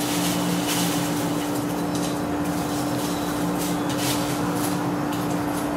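Steady hum of a kitchen exhaust fan, with faint light rustles as tortilla strips are dropped by hand into a bowl of soup.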